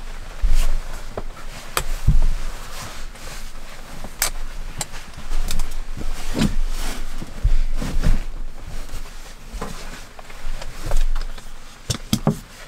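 Cushions and bedding being shifted and patted into place in a small cabin: soft thumps, fabric rustling and scattered sharp clicks and knocks.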